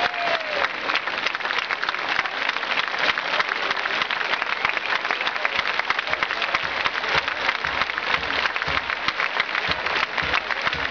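Large crowd applauding steadily: dense, even clapping.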